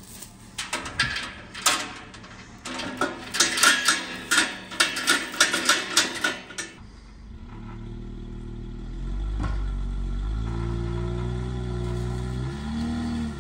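A run of sharp metallic clanks and knocks, then a motor vehicle engine that starts running and holds steady, its pitch shifting near the end.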